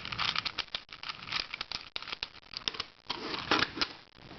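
Crinkling and rustling of plastic with many quick small clicks as puzzles are handled, with a denser burst of crinkling about three seconds in.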